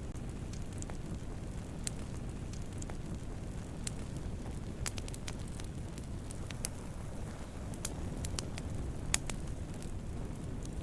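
Wood campfire burning with a steady low rumble of flames and scattered sharp crackles and pops, the loudest pop about nine seconds in.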